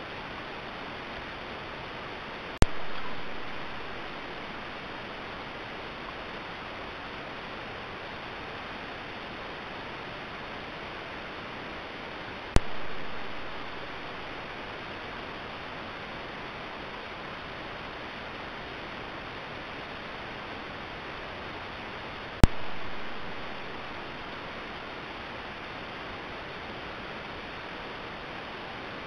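Steady hiss from a trail camera's microphone, broken by three sharp clicks about ten seconds apart, each followed by a brief swell of hiss that dies away over a second or so, where one recorded clip gives way to the next.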